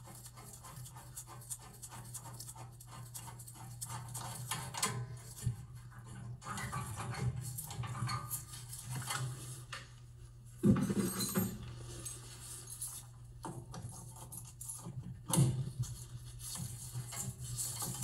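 Pilot tube and main burner gas tube fittings being broken loose from the gas valve of a tank-type gas water heater: irregular metal clinks, scrapes and rubbing, with a louder knock about eleven seconds in, over a steady low hum.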